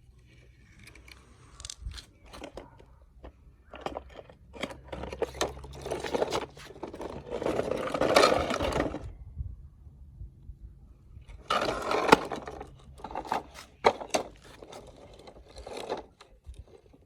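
Toy cars being handled and pushed about: irregular scraping with clicks and knocks, in two louder stretches of scraping, one in the middle and a shorter one about two-thirds of the way through.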